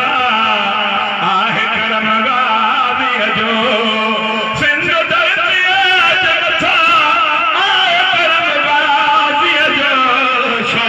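A man's voice singing a melodic lament into a microphone, amplified through a loudspeaker, with long wavering held notes.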